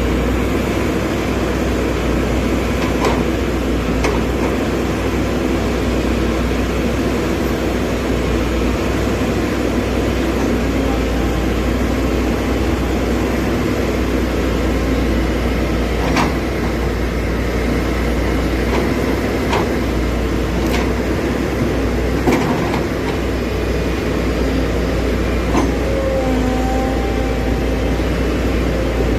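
Excavator's diesel engine running steadily, with a few sharp metallic clanks or knocks scattered through.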